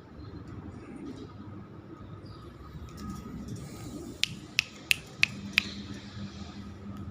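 Five short, sharp clicks in quick succession, about three a second, over a low steady background hum.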